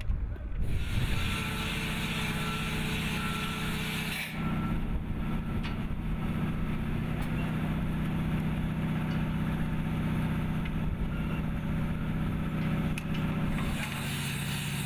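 An engine runs steadily with a low hum. A repeating high beep sounds over it for the first few seconds.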